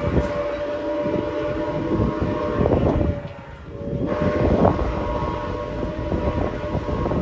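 Locomotive air horn sounding two long blasts of several tones together, a short break between them and the second still going at the end, over the rumble of a moving train.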